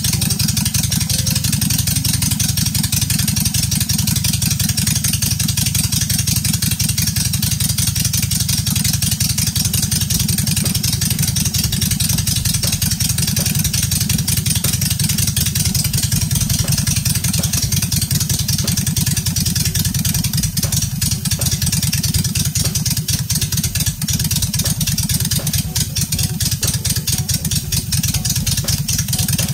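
Honda Shadow Ace V-twin motorcycle engine running steadily at idle, an even stream of exhaust pulses, on a newly fitted set of main and idle jets in its single-carburetor setup while the tune is being dialled in.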